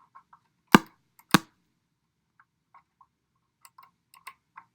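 Two sharp pops about half a second apart, then scattered faint crackling ticks, from a Tapco Link USB audio interface being tested for leftover potentiometer static after its knobs were cleaned with DeoxIT.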